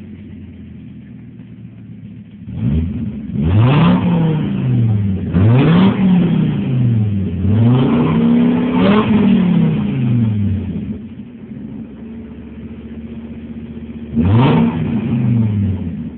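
Modified Fiat Marea 2.0 20V five-cylinder engine, stationary, revved loud: it idles, then is blipped up and down four or five times in quick succession from about three seconds in, settles back to idle, and gets one more sharp rev near the end.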